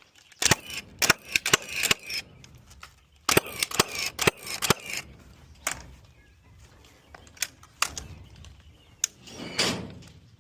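Framing nail gun firing nails into wooden roof purlins: a run of sharp shots in quick clusters, then a few single shots spaced out.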